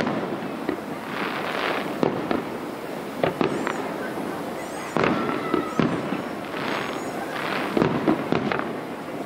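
Aerial fireworks shells bursting at a display: a string of sharp bangs, one every second or two, with stretches of crackling hiss between them.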